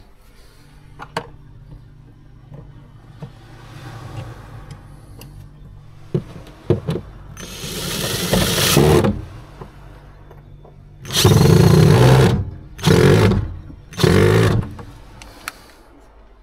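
Power drill driving screws into a caravan cabinet: one long run that builds about halfway through, then three short bursts close together near the end, with light knocks and clicks before.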